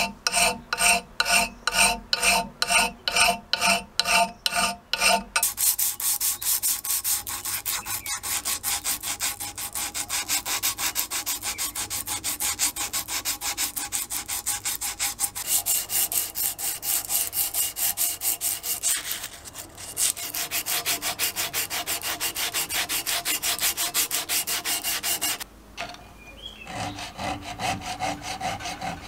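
A file drawn by hand over the cast frame of a hand drill in regular strokes, about two a second. About five seconds in it gives way to a fast, continuous rasp of abrasive paper rubbed by hand over the casting, which stops abruptly near the end. A file then works a small metal gear clamped in a wooden vise.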